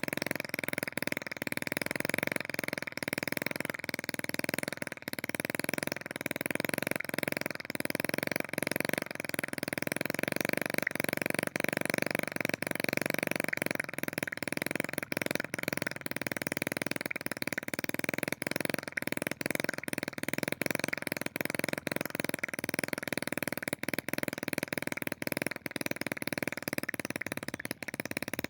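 A small homemade two-stroke engine, converted from a refrigerator compressor, running steadily with a dense buzzing tone broken by frequent brief dropouts.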